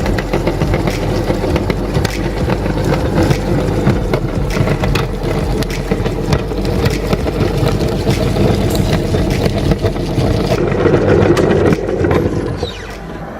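Electric meat grinder motor running with a steady hum under dense, irregular cracking and crunching as oysters are forced through it. The noise falls away about 12 seconds in.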